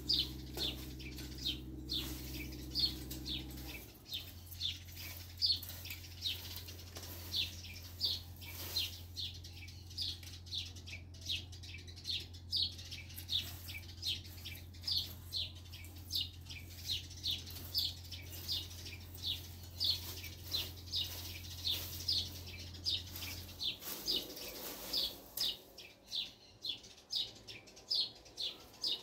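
Garden rake scraping over dry, bare dirt, one swish per stroke in a steady rhythm. A low steady hum runs under it and stops near the end.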